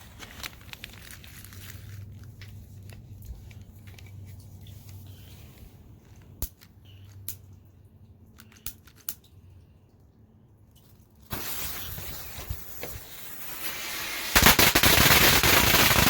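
A string of firecrackers going off in the rain: a quiet stretch with a few scattered sharp pops, then rapid dense crackling that starts about eleven seconds in and becomes much louder near the end before cutting off suddenly.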